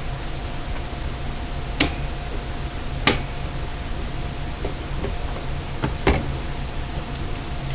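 Three sharp clicks of hard parts being handled, spaced a second or three apart, with a few fainter ticks, over a steady low hum.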